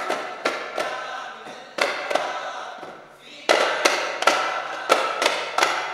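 Duff Muttu: a group of male voices singing together, punctuated by sharp strikes on daf frame drums. The drumming fades into a short lull about two to three seconds in, then comes back louder with a burst of strikes and singing.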